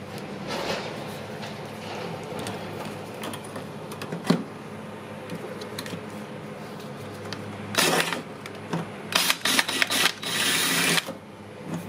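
Small cordless drill drilling out a hole in a car's firewall to take a rivet nut: a lower steady whir for most of the time, a sharp click about four seconds in, then three loud bursts of the drill near the end.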